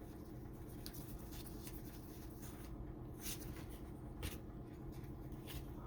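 Trading cards being slid and flipped through by hand: a few soft, brief brushing scrapes of card stock against card stock over a steady low hum.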